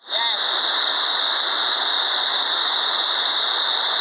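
Steady rushing water of a waterfall: a constant loud hiss with no letup. A brief high squeak sounds just after the start.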